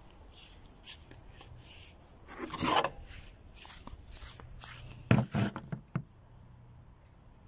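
Handling noise from a recording phone being moved and set down: a rubbing, rustling burst about two and a half seconds in, then a few close knocks and bumps around five seconds in.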